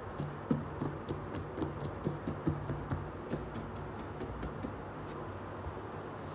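Light taps and knocks from hands handling a closed cardboard box, several a second for the first three seconds or so, then fewer. A steady low hum runs underneath.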